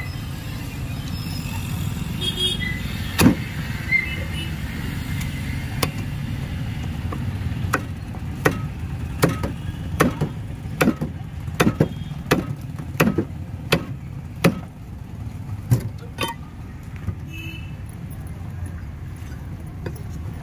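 Large knife chopping a katla fish into pieces on a wooden block: a couple of single chops, then a run of sharp chops a little over one a second that stops a few seconds before the end. A steady low rumble of street traffic lies under it.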